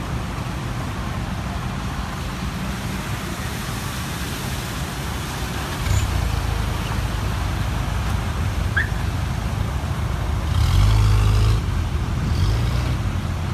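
Car engines running as traffic creeps through floodwater, tyres sloshing through the standing water. A vehicle passes close by near the end, the loudest moment, with a hiss of water spray.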